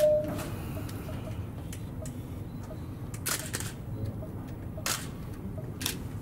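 A few sharp clicks, one around the middle and two more a second or so apart near the end, over a steady low background rumble.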